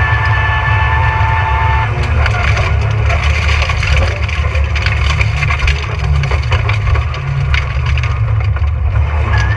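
Rally car driving hard on a gravel forest stage: a constant low engine and road drone, with a steady whine that stops about two seconds in, then a dense clatter of stones and gravel hitting the car's underside.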